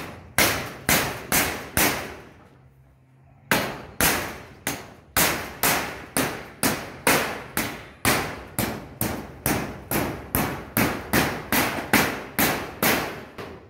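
Hammer driving nails into corrugated metal roofing sheets: a run of sharp strikes, each ringing briefly, about two a second, with a short pause about two seconds in.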